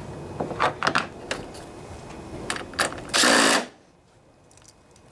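Metal tool clicks on the handle's bolt hardware, then a loud half-second burst of rapid mechanical rattle from a tool about three seconds in.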